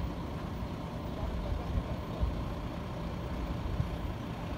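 Low, uneven outdoor rumble with no voices.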